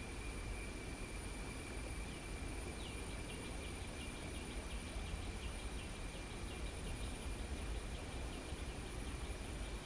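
Insects droning on two steady high pitches, with a fast ticking call starting about two seconds in and fading out near the end, over a steady low rumble.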